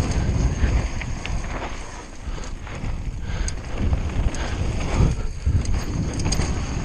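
Mountain bike riding fast down a rough downhill trail: wind rushing over the action camera's microphone, with the bike rattling and knocking over bumps now and then.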